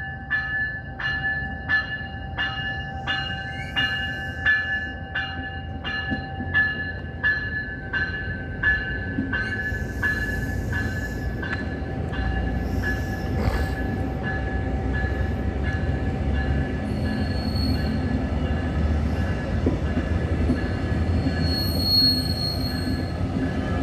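A passenger train pulling out past the station. A bell rings at about one and a half strokes a second and dies away by about halfway through. The rumble of the locomotive and cars then grows, with brief squeals from the wheels on the rails.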